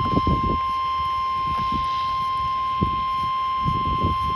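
Weather radio warning alarm tone: one steady, loud, single-pitched tone near 1 kHz (the 1050 Hz warning-alarm tone), sounding before a severe thunderstorm warning is read.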